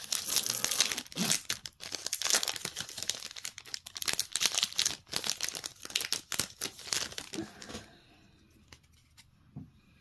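Plastic wrapper of a Topps Holiday baseball card pack being torn open and crinkled by hand, a dense crackling rustle that stops about eight seconds in.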